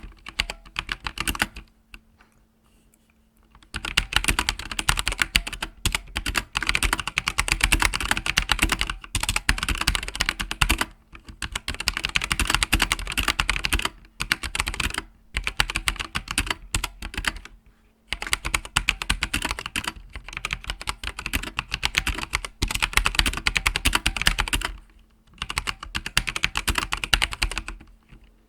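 Typing on a Logitech G513 mechanical keyboard with GX Red linear switches: fast runs of key clicks broken by short pauses.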